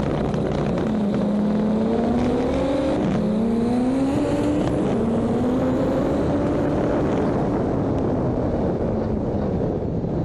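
Turbocharged VW Gol GTI 16V four-cylinder engine, managed by a FuelTech FT600, on a drag-strip run. It holds a steady note at first, then pulls hard with its pitch climbing and dropping at each gear change, about three and five seconds in.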